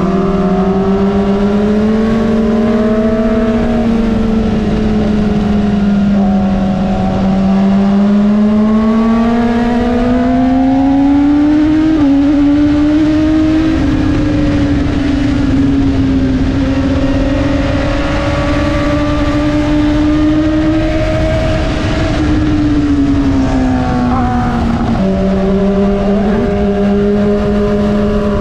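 BMW S1000RR inline-four engine running under way, its note rising and falling slowly with the throttle. Near the end the pitch drops suddenly, as at a gear change, then holds steady.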